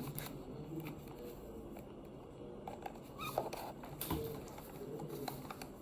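Faint scattered clicks and scratchy rustling from oscilloscope probe leads and clips being handled.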